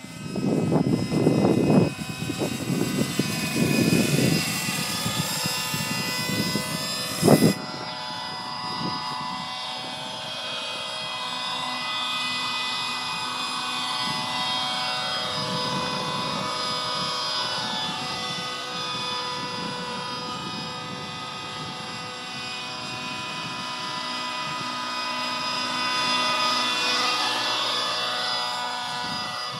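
Glow-fuel (nitro) model helicopter engine running with a high, tonal note whose pitch rises and falls slowly as the throttle changes. A gusty low rumble runs through the first several seconds, and a single sharp knock comes about seven seconds in.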